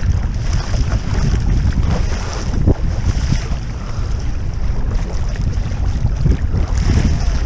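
Wind buffeting the camera's microphone over choppy sea, a steady low rumble, with sea water hissing and splashing against the sit-inside kayak's bow and the paddle blade as it strokes.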